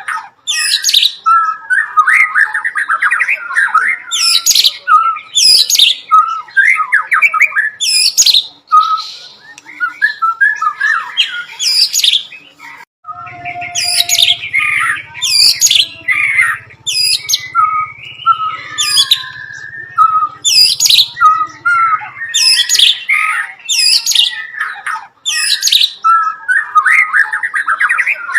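White-rumped shama (murai batu) singing loudly and without pause: repeated sharp sweeping whistles mixed with fast chattering phrases, its song filled with mimicked bar-winged prinia (ciblek) calls.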